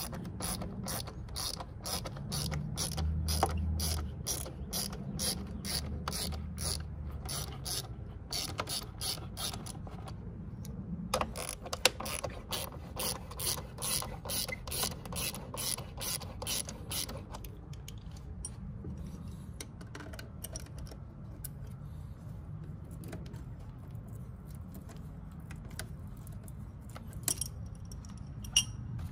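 Hand ratchet wrench clicking as bolts are loosened, about three to four clicks a second. The clicking breaks off briefly about ten seconds in, resumes, then thins out to a few scattered light clicks.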